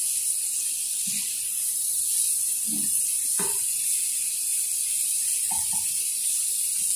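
Shrimp sizzling in garlic butter in a frying pan over low heat, a steady hiss, with a few brief scrapes and knocks from a wooden spatula stirring them.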